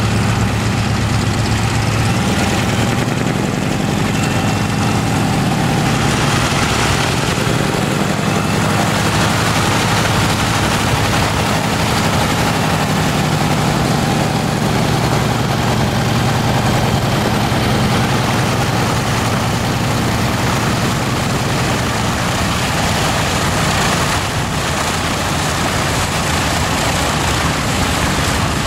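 Radial engines of vintage biplanes running at low power as they taxi, a steady low throb whose pitch rises and falls slightly.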